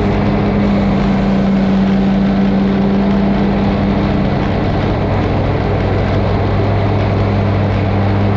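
Kohler Command PRO ECV650 EFI V-twin engine of an Exmark Turf Tracer walk-behind mower running steadily at mowing speed, its blades cutting thick grass.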